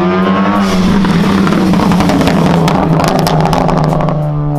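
Ford Focus ST's turbocharged four-cylinder through a straight-piped MBRP turboback exhaust, super loud as the car drives past. In the second half a quick run of sharp crackles and pops sounds as the engine note drops: the overrun crackles of its Stratified tune.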